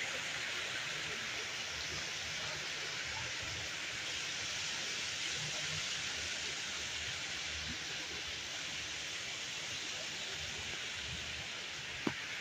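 A steady, even hiss with uneven low rumbling underneath, and a single sharp click near the end.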